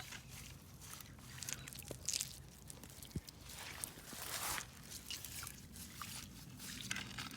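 Irregular rustling, scraping and crunching handling noise with a few short clicks, as a dip net is worked and footsteps move in wet ground and vegetation.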